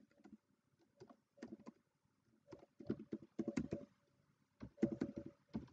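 Computer keyboard being typed in short bursts of quick key clicks, with brief pauses between the bursts.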